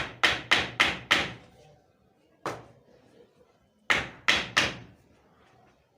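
Hammer blows on wood, in three groups: five quick blows about a quarter second apart, a single blow, then three more. This is typical of nailing together a wooden frame for a sand screen.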